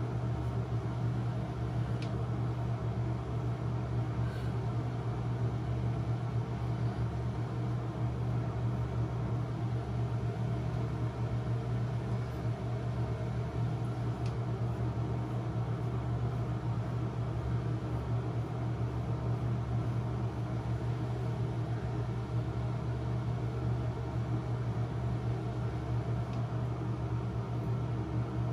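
Steady low mechanical hum over a constant even noise, unchanging throughout, with a couple of faint soft ticks.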